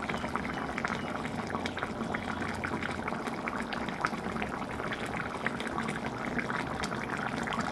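Thin curry gravy boiling in a pan: a steady bubbling with many small pops.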